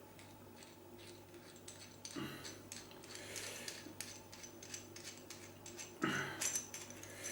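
Light metallic clicks and scrapes from handling a small metal coax plug and tools, with louder clusters about two seconds in and again near six seconds.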